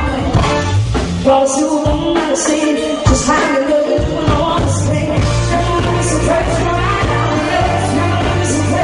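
Pop song playing, a lead vocal over a full band with bass and drums.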